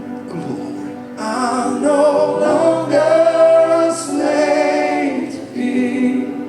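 Gospel worship singing: a group of mostly female voices singing together in long held notes, with music.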